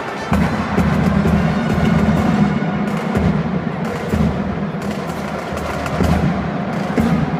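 Marching drum corps drums playing, with sharp repeated hits coming in strongly about a third of a second in.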